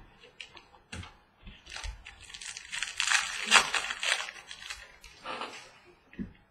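A foil trading-card pack being torn open and its wrapper crinkled, with a few light knocks of cards being handled. The crackling is densest in the middle.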